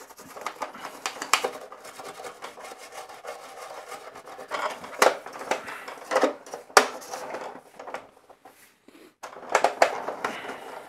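Toothbrush bristles scrubbing dust out of the ridges of a vintage plastic Imperial Shuttle toy, a dry scratchy rubbing in quick strokes. Several sharp knocks come around the middle, and the scrubbing stops briefly near the end before starting again.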